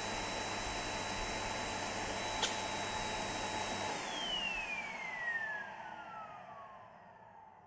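An electric motor appliance running steadily with a high whine, a sharp click about two and a half seconds in, then switched off: its whine falls steadily in pitch as the motor winds down and fades out.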